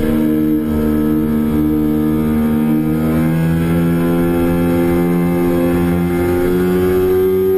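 2008 Kawasaki Ninja 250R's parallel-twin engine running under load, heard from on the bike at speed. The revs hold fairly steady at first, then climb steadily from about halfway as the bike accelerates out of a corner onto the straight.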